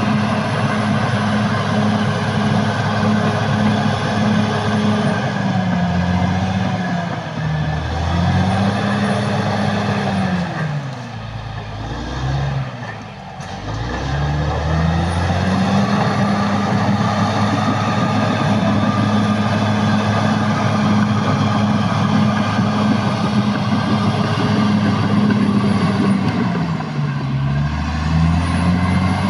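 Caterpillar D6R bulldozer's diesel engine running at high revs, its pitch sagging briefly under load a few times. About halfway through it drops right down for a few seconds, then revs back up.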